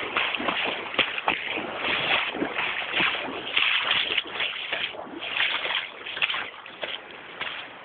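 Water sloshing and splashing in a shallow hill stream, a dense run of quick, irregular splashes that eases off near the end.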